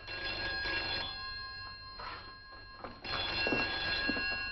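Telephone bell ringing in repeated bursts. It stops for about a second midway through, then rings again until it is answered.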